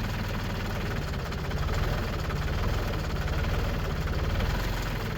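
New Holland compact tractor's diesel engine idling steadily, a little louder from about one and a half seconds in until near the end.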